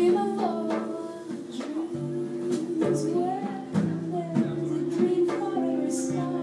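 A woman singing live, backed by a plucked upright double bass and a drum kit: held, wavering sung notes over low bass notes, with scattered drum and cymbal strikes.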